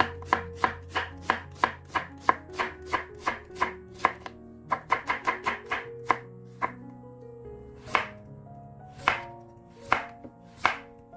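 A chef's knife slicing a halved onion thinly on a wooden cutting board: a quick run of crisp chops, about three a second, then a faster flurry midway. Near the end come a few slower, separate cuts through a carrot.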